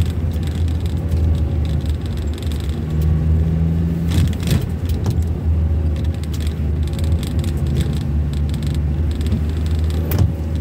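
Car being driven, heard from inside the cabin: a steady low drone of engine and tyre noise. A few short knocks stand out about four to five seconds in and once near the end.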